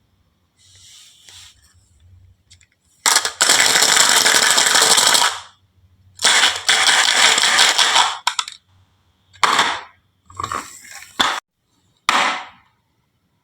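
Marbles rolling and clattering down a wooden marble run track: a few faint clinks, then two long rattling runs of about two seconds each, followed by several shorter clattering bursts.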